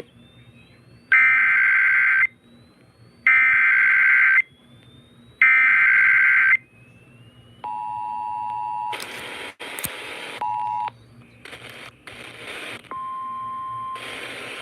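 Emergency Alert System header played over the radio: three loud bursts of rapid warbling data tones, each about a second long and a second apart. These are followed by the steady two-tone attention signal for about three seconds, crossed by bursts of noise. Near the end comes a single steady alert tone.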